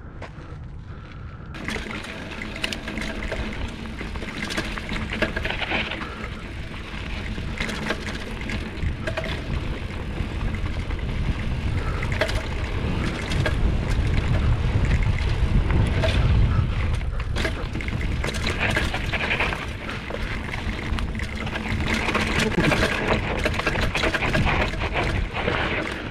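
Mountain bike riding a dirt trail: tyres rolling and crunching over loose ground, the bike rattling, and wind buffeting the microphone. The low rumble is heaviest around the middle.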